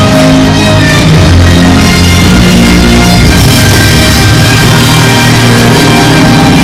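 Loud rock music with a drum kit and guitar.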